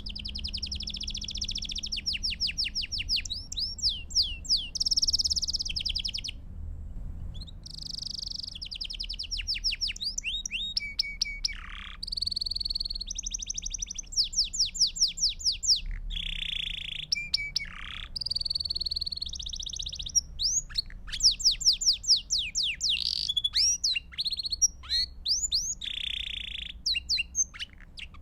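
Belgian (domestic) canary singing a continuous song of rapid trills, fast runs of repeated notes and sweeping whistled phrases, with a short pause about six and a half seconds in. A faint low hum runs underneath.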